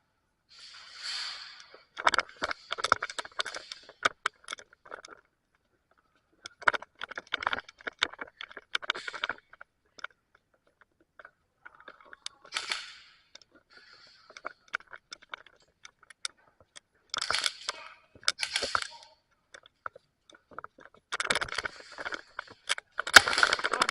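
An airsoft player's gear rattling and footsteps crunching, in irregular bursts of clicks and scrapes separated by short hissy rushes and brief lulls.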